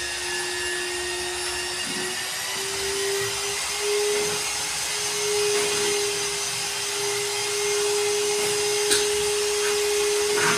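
A small electric motor running with a steady whine that creeps slightly higher in pitch, with a sharp tap about nine seconds in.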